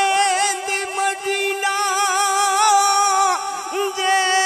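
Naat singing: a male voice holding long, wavering notes over a steady held note underneath, amplified through a sound system.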